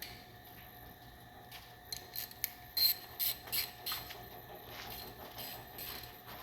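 Hand ratchet wrench clicking in a run of short strokes, about three a second for a couple of seconds, then a few fainter strokes near the end.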